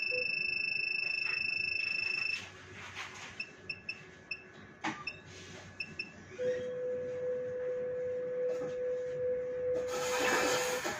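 Keypad beeps of a blood collection monitor while its volume setting is adjusted: one held beep for the first couple of seconds as a key is held down, then a run of about ten short beeps, one per key press. A lower steady tone follows for about four seconds. A brief burst of noise comes near the end, as start is pressed and the rocking mixing tray sets off.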